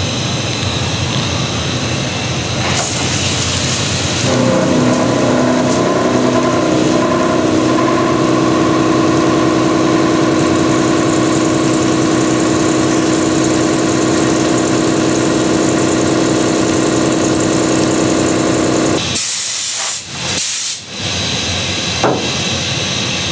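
A CNC machining center's spindle runs a six-flute 80 mm shell mill cutting a steel wall under flood coolant, making a steady loud hiss of coolant spray and cutting. From about four seconds in, a steady pitched whine of the cut sits over the hiss. The sound drops out briefly twice near the end.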